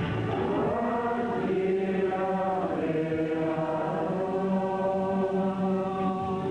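A group of voices singing a slow, chant-like hymn in long held notes that glide from one pitch to the next.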